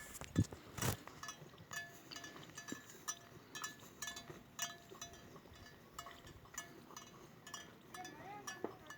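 Cow's neck bell clinking in short, fairly regular rings, about two a second, each at the same pitch.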